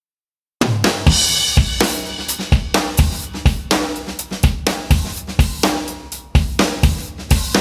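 Background music with a driving drum-kit beat of bass drum, snare and cymbals, starting about half a second in.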